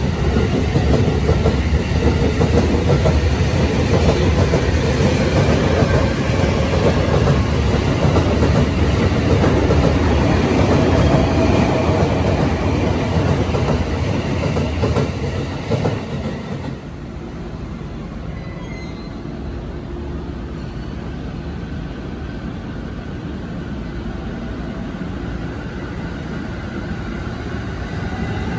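JR East E231 series 0-subseries electric commuter train moving along a station platform: the rumble and clatter of its wheels on the rails, with a motor whine rising in pitch as it gathers speed. About halfway the sound drops to a quieter, enclosed platform where the train's whine starts rising again near the end.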